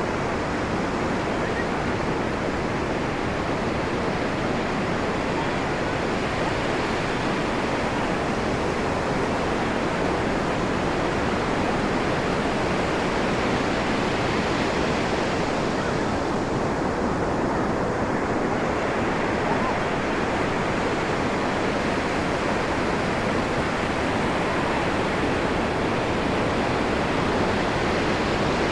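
Ocean surf breaking and washing up the beach: a steady, even rush of water with no distinct lulls.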